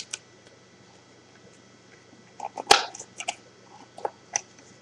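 Plastic wrapping of a sealed trading-card mini box crackling and tearing as it is opened by hand: a short cluster of crackles and clicks in the second half, the sharpest a little past the middle.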